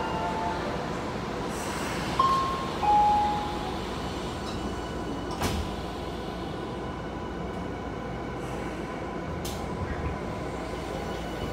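Interior of a Y500 series commuter train at a station stop over a steady hum of its onboard equipment: two electronic chime tones sound about two seconds in, the doors slide shut with a knock about five and a half seconds in, and near the end the electric traction motors begin to whine as the train starts off.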